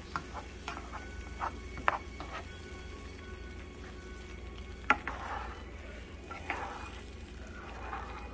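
A spoon stirring and scraping onion gravy in a frying pan as it sizzles, with scattered sharp knocks of the spoon against the pan, the loudest about five seconds in.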